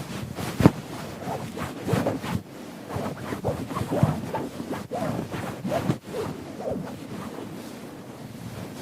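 Keyboard being scrubbed during cleaning: irregular swishing and rubbing strokes, with one sharp knock about half a second in.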